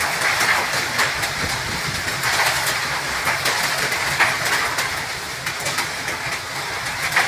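A violent storm: a steady rush of wind-driven heavy rain, with many small sharp impacts spattering throughout.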